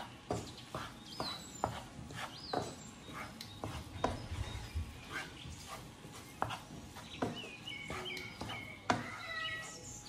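Wooden spatula knocking and scraping against a nonstick frying pan while stirring fried rice, about two irregular knocks a second with a louder one near the end. Short high chirps sound in the background.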